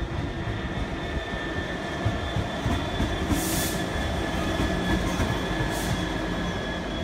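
Freightliner Class 66 diesel-electric locomotive passing close by, its EMD two-stroke V12 running with a steady low rumble and a thin, steady high whine over it. Two short hisses come through, one about halfway and one about six seconds in.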